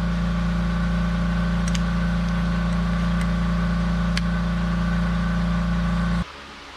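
A steady, low machine hum that cuts off suddenly about six seconds in, with a few faint clicks over it.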